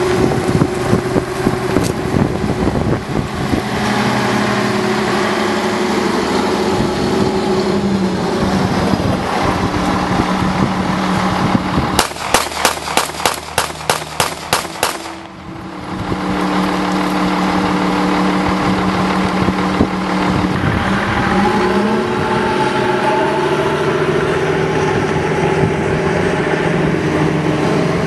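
Diesel engine of a wheel loader running steadily as it drives over a pistol. About twelve seconds in comes a rapid string of about a dozen 9mm pistol shots from a CZ P-09, fired over roughly three seconds. Engine noise then resumes.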